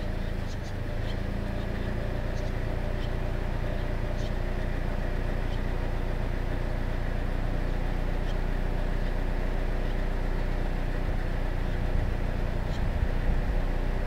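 Steady low machine hum, like a running engine or nearby traffic, with a few faint short high chirps from barn swallow nestlings scattered through, most of them in the first few seconds.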